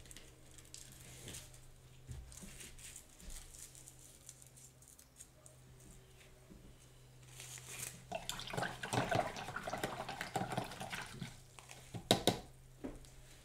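Small handling sounds at an art work table: faint ticks and taps, then about three seconds of busy rustling and swishing about two thirds of the way in, and two sharp clicks near the end.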